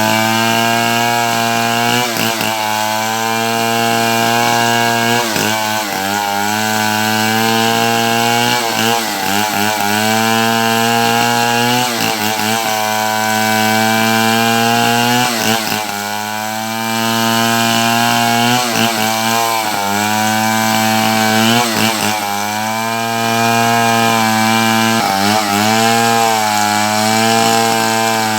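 Chainsaw running at high revs while cutting through wood. Its pitch sags and recovers every few seconds as the chain bites in under load.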